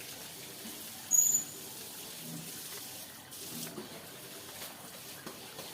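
Hill myna giving one short, high whistle about a second in, with a few faint low sounds scattered through the rest.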